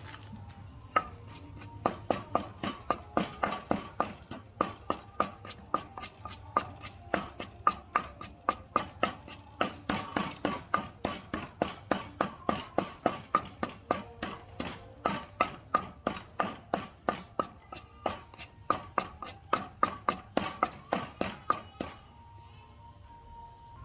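Background music with a steady, sharp percussive beat over held tones; it stops about 22 seconds in, leaving a low hum.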